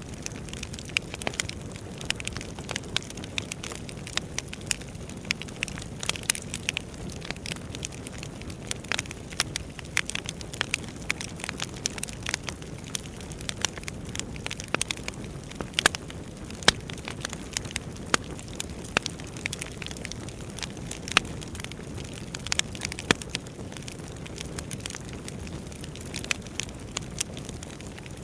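Wood fire burning: a steady low rumble of flames under irregular sharp crackles and pops from the burning logs, with a few louder pops scattered among them.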